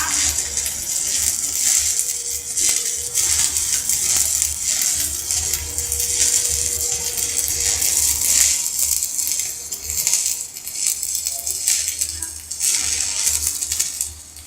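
Stick (electrode) arc welding powered by a Daesung welding machine: a steady crackling sizzle as the electrode burns down, with a low hum underneath. It drops off briefly near the end.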